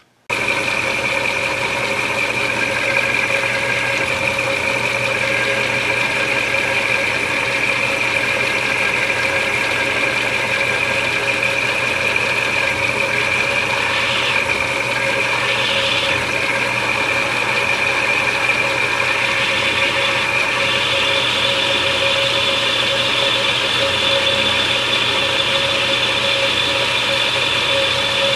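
Benchmaster milling machine running steadily with a constant whine as a half-inch Forstner bit bores a half-circle clearance cut into a wooden HW30 rifle stock for the breech block pivot bolt head. A higher whine joins in about two-thirds of the way through.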